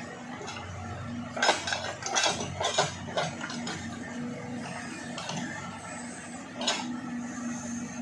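Case 580 Super K backhoe loader's diesel engine running steadily, with a quick run of sharp metallic clanks from the backhoe arm and bucket linkage about a second and a half in, and one more clank near the end.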